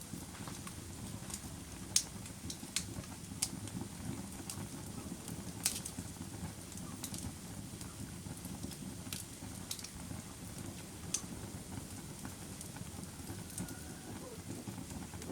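Wood campfire burning: a steady low rumble of flames with scattered sharp crackles and pops from the burning wood, the loudest about 2 and 6 seconds in.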